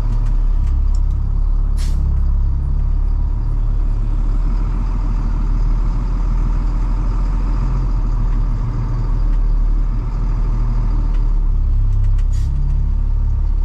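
Plow truck's engine running steadily at low speed, with two short hisses, one about two seconds in and one near the end.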